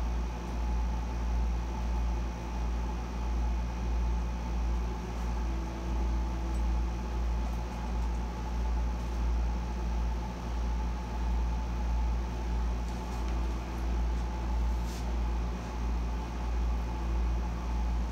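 Air conditioner running steadily: a low hum that swells and fades about once a second, with a fainter steady whine above it.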